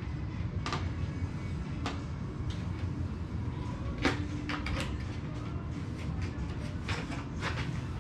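Scattered light clicks and taps of composite model-glider parts as the wing is fitted onto the fuselage and the flap pushrod clevises seat, the sharpest tap about four seconds in, over a steady low hum.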